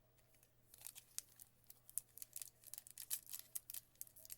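A trading-card pack's foil wrapper being crinkled and torn open by hand, with a rapid, irregular run of sharp crackles starting about a second in. The pack is stubborn to open.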